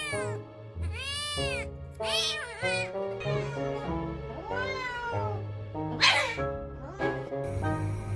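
A cat meowing repeatedly: about five drawn-out meows that rise and fall in pitch, the one about six seconds in harsher and more strained. Background music plays underneath.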